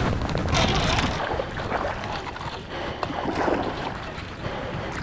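Wind rushing over the microphone with water splashing against the hull of a bass boat on choppy water.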